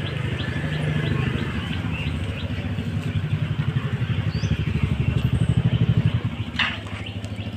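A motor vehicle's engine running close by with a fast low pulsing, growing louder and then dropping away about six seconds in, followed by a short sharp clatter.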